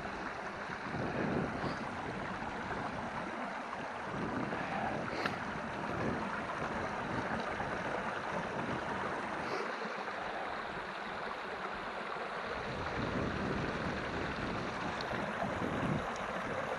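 Small moorland stream running fast over rocks, a steady rush and babble of water, with some low wind rumble on the microphone.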